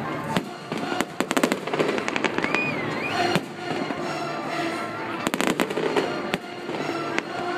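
Fireworks going off in a display, with rapid cracks and bangs in clusters about a second in and again around five seconds in, and music playing underneath.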